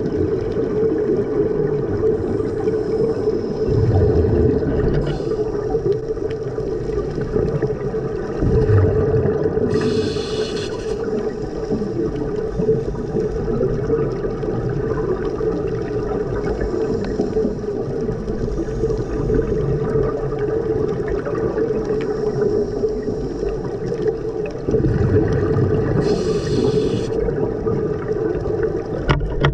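Underwater sound picked up by a dive camera: a steady drone with a scuba diver's exhaled bubbles bubbling and gurgling now and then, and two short hisses, about ten seconds in and near the end.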